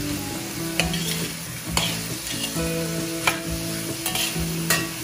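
Diced vegetables sizzling in a hot stainless-steel wok, stir-fried with a spatula that scrapes and taps the pan a few times.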